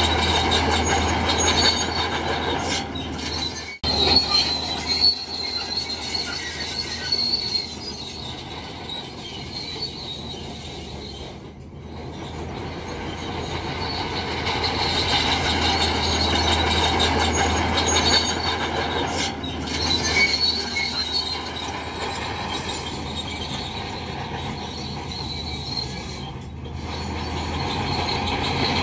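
Crawler bulldozer working: the diesel engine runs under load while the steel tracks squeal and clank, the loudness rising and falling as it pushes.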